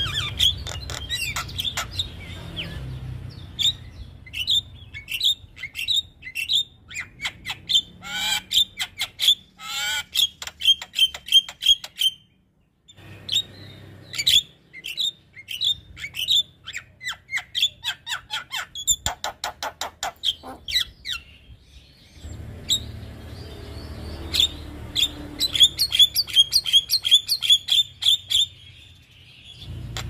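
Javan myna (jalak kebo) singing: loud runs of sharp, chattering call notes and short whistles, some runs speeding up into fast rattles. The song cuts out briefly near the middle.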